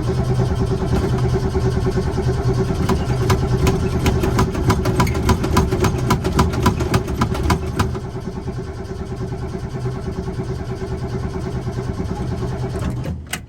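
Car engine cranking on its starter for about thirteen seconds without catching, then stopping abruptly: the engine is flooded after the gas pedal was pumped.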